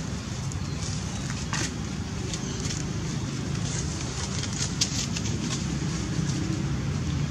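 A steady low outdoor rumble, like wind on the microphone or distant traffic, with scattered faint ticks and rustles and one sharper click about five seconds in.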